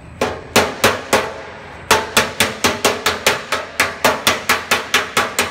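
Hammer striking a red-hot spot on a car body panel, with a toe dolly held against the back, to shrink stretched metal during heat shrinking. Four blows, a short pause, then a quick, even run of about four blows a second.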